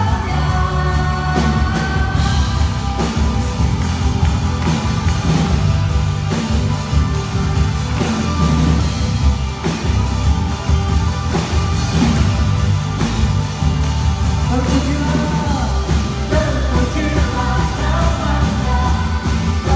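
Live worship band playing a rock-style praise song: electric guitars, bass, drums and keyboard. Lead singers sing in Indonesian at the start, the band carries on with less singing in the middle, and the voices come back near the end.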